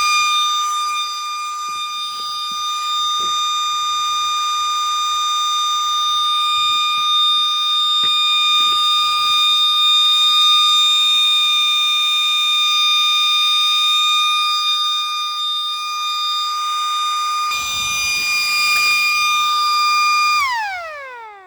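MS-190 electric motor siren sounding a steady high wail at full speed, then spinning down near the end with a falling pitch as it fades.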